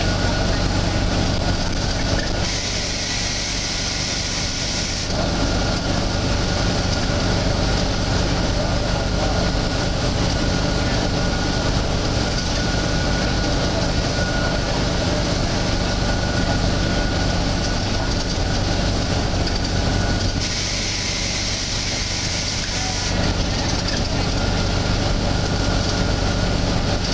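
Volvo B9TL double-decker bus running steadily, broken twice, a few seconds in and again near the end, by a loud hiss lasting about two and a half seconds each time: the strange hissing noise this bus makes.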